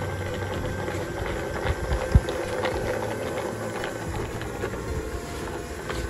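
Budget Sweepin' Robot robot vacuum running over a sandy concrete floor: a steady motor hum with scattered light ticks, and a single short thump about two seconds in.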